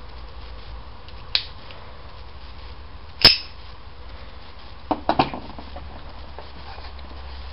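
Spring-loaded flick blade of a lighter-shaped switchblade being worked: a light click, then a loud sharp snap about three seconds in, then a quick run of three or four clicks about five seconds in.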